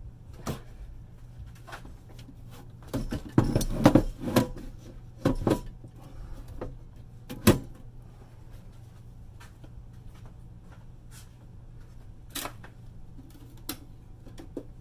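Metal-cased 48-volt lithium battery module lowered into a golf cart's plastic battery tub: a cluster of clunks and scraping about three to four and a half seconds in, a few more knocks, then one sharp knock about seven and a half seconds in, with a few light taps near the end.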